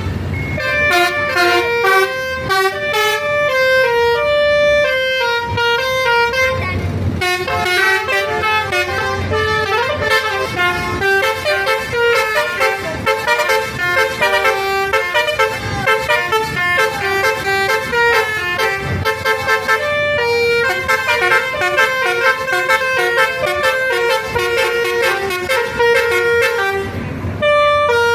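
Bus 'basuri' melodic air horns playing a fast tune of short stepped notes, several tones sounding together, with a few brief breaks.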